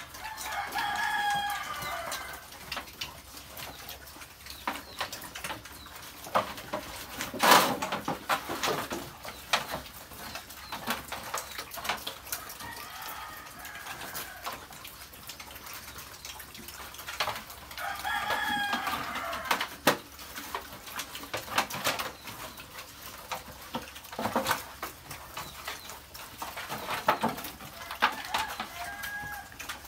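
A rooster crowing four times, each crow about two seconds long, the first and third loudest. Under it, piglets feeding at a trough make short clicks and knocks, with one loud knock about seven seconds in.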